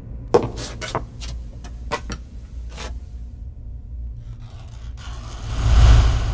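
Film sound effects over a steady low rumble: a run of irregular sharp knocks in the first three seconds, then a swelling rush of noise with a deep boom that peaks near the end and begins to fade.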